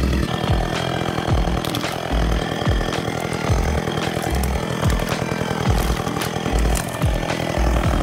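Gas chainsaw running steadily at speed, cutting branches from a tree.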